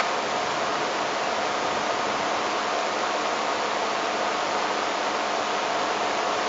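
Steady, even hiss with a faint constant hum in it and no distinct events.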